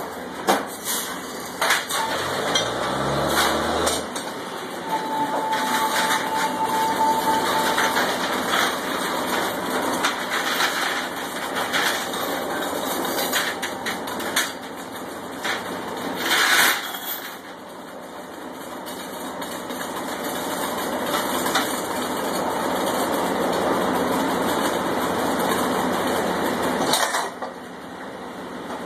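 Land drilling rig's engines and drawworks running steadily, with metal clanks from the spinning chain, tongs and drill pipe as pipe is tripped. The engine revs up about two seconds in, and a short loud burst of noise comes about sixteen seconds in.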